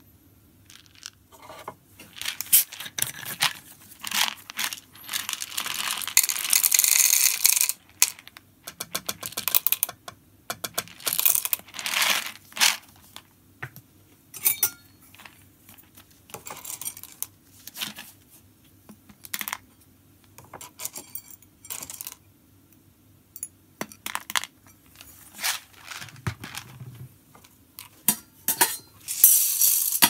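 Roasted coffee beans clattering and rattling as they are tipped from plastic bottles and measured with a copper scoop into a plastic cup. The irregular clicks come in quick runs, busiest a few seconds in.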